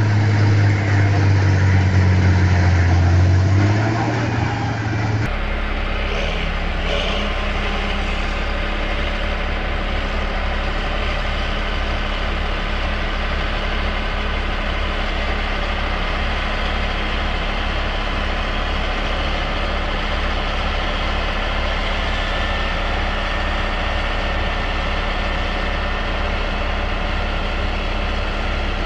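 A Caterpillar excavator's engine runs with a loud deep hum for about the first five seconds. There is then an abrupt change to a steady, lower engine drone with a fast low pulsing, from a John Deere tractor mired in a bog and the tracked vehicle towing it.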